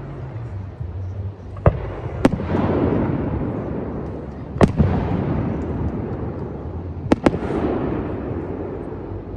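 Fireworks display: aerial shells bursting with about five sharp bangs, two of them in quick succession near the end, each trailing off in a lingering rumble.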